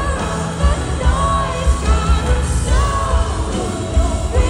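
Live pop concert: a woman singing into a microphone over the band, with a pulsing bass beat.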